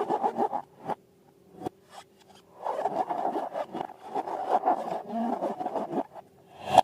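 Quick rubbing and scraping strokes in two runs: a short one right at the start, then a longer run from about two and a half to six seconds in, with a single sharp scrape near the end.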